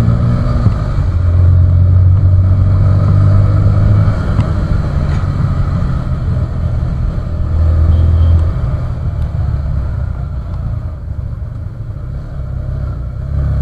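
Motorcycle running on the road at riding speed, a steady engine drone mixed with low wind rumble on the rider-mounted microphone; it grows quieter for a few seconds near the end.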